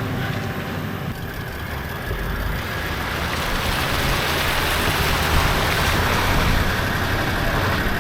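Vehicle engine and road noise while driving: a steady rumble with an even hiss of tyres and wind.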